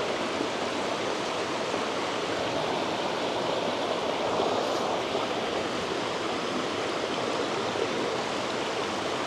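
Mountain creek running, a steady wash of rushing water.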